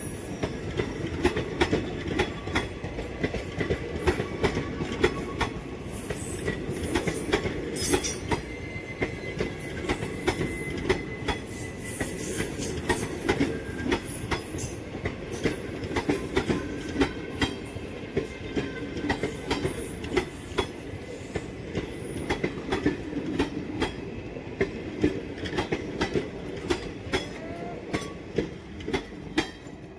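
Train wheels running over the track: a continuous rumble with many sharp clicks of the wheels passing rail joints, and a thin squeal from the wheels at times.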